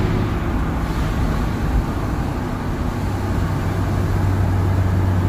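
Dodge pickup's 5.9 Cummins inline-six turbo-diesel heard from inside the cab, with the manual transmission in gear and the exhaust brake holding it back on a downhill: a steady, low, thumping drone over road and tyre noise.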